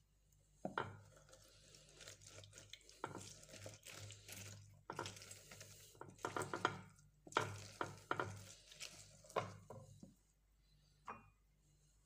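Orange halves being twisted and pressed on a hand citrus juicer: irregular scraping and squishing of rind against the reamer, with a few small knocks of the juicer.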